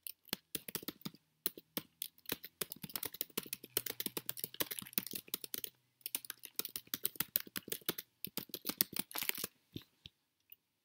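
Typing on a computer keyboard: a fast run of keystrokes with a short break about six seconds in, stopping about ten seconds in.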